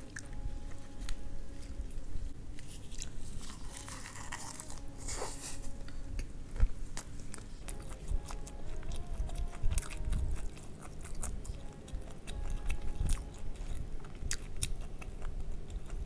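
Close-miked chewing and crunching of a wrapped mouthful of fried rice with duck intestines, full of small sharp crackles and wet mouth clicks, with a louder crackly crunch about four seconds in.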